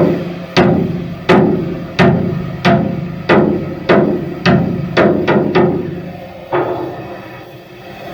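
About a dozen sharp knocks like hammer blows, evenly spaced at roughly one and a half a second, each ringing briefly. Three come closer together about five seconds in, and the last falls near six and a half seconds, over a steady machinery rumble.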